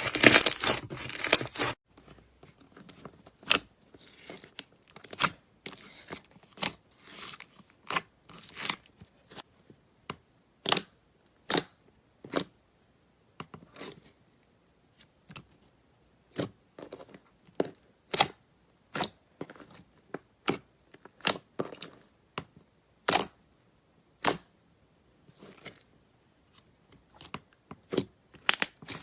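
Slime being squeezed and pressed by hand: a dense crackling stretch in the first couple of seconds, then scattered short pops and clicks, about one or two a second.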